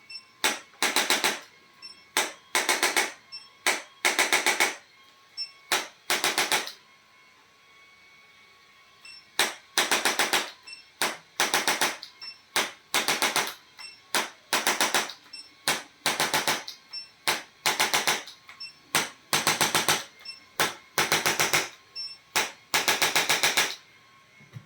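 Handheld chiropractic percussion instrument firing short bursts of rapid mechanical taps, each burst under a second, over twenty bursts with a pause of about two and a half seconds early on.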